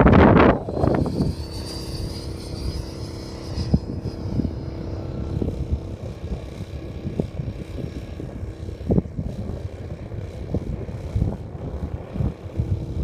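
Model airplane's motor and propeller droning steadily in flight, with a thin high whine over it that fades out about four seconds in; the drone weakens after about six seconds. Gusty wind buffets the microphone throughout, hardest in the first moment.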